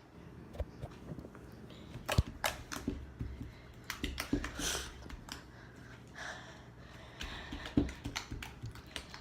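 Slime being squished and pressed by hand, making irregular wet pops and clicks.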